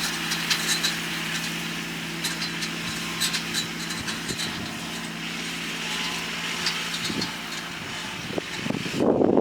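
Kubota tractor's diesel engine running steadily under load while pulling a hay tedder, with scattered light clicks and rattles. Near the end there is a brief, louder low rumble.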